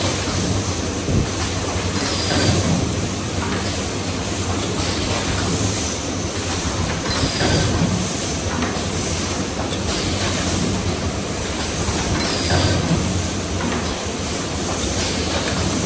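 Corrugated paper baking-mould forming machine running: steady mechanical clatter with a regular stroke about every second and a quarter.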